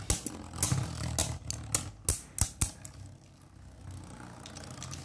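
Two Beyblade Burst spinning tops, Glide Ragnaruk and Perfect Phoenix, whirring in a plastic stadium and clacking as they hit each other, a run of sharp hits through the first half or so, then spinning on with a quieter steady whir.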